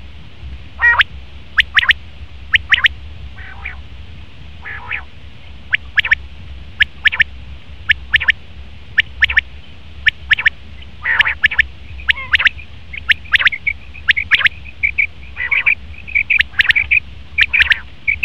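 Male common quail calling over and over: short sharp notes in quick groups of two or three, mixed with a few longer, harsher rasping notes, coming closer together towards the end.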